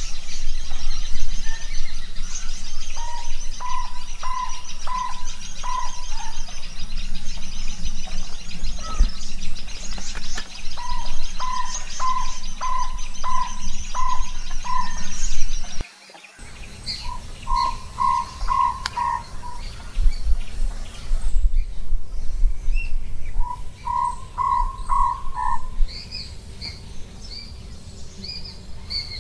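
Jungle owlet calling: four runs of five to seven short, even-pitched notes, each run in about two or three seconds, the later runs quicker. A fast high twittering runs behind the first half, and the sound cuts out for a moment about sixteen seconds in.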